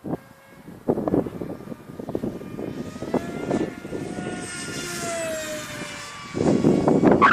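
Electric motor and propeller of a small RC flying wing whining in flight, its pitch sliding down around the middle as it passes. Wind gusts buffet the microphone throughout, loudest about a second in and near the end.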